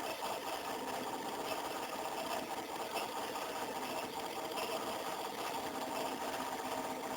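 Stepper motors of a CNC machine running steadily as they move a contact scanning probe, a continuous mechanical hum with several steady tones.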